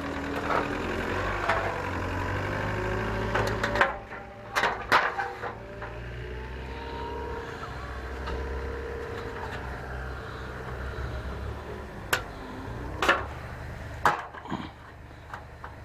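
A vehicle engine running with a low steady hum that fades in the second half, with several sharp knocks and clatters of hard objects about four seconds in and again near the end.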